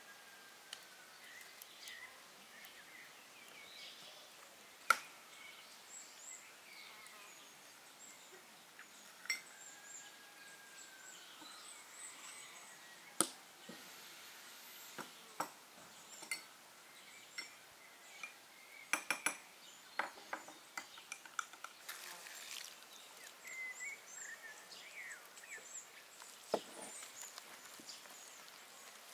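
Scattered sharp clinks and taps of a utensil and fingers against a glass mixing bowl as butter and flour are worked into a crumbly dough, with a quick run of clinks about two-thirds of the way through. Behind them is quiet outdoor ambience with occasional short bird chirps.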